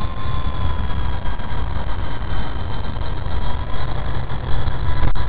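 Wltoys V913 electric RC helicopter in flight, its motors and rotors giving a steady whine at two pitches over a low rumble.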